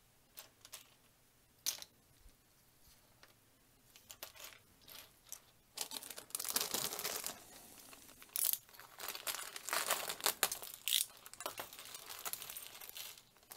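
A few light clicks of plastic parts being handled, then from about six seconds in a small plastic parts bag of a brick-building kit crinkling and rustling in bursts as it is handled and opened.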